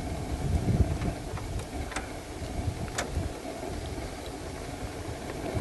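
Low, uneven rumble of a vehicle engine idling, with a few faint clicks.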